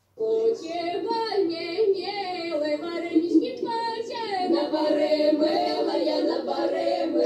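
A group of young women singing a Russian folk song a cappella, several voices together, starting abruptly just after the start.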